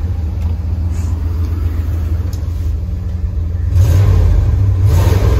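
1979 Ford F-250's carbureted engine idling with a steady low rumble, then revved up about four seconds in and held there, heard from inside the cab. The truck has been running poorly on old gas with a carburettor that floods.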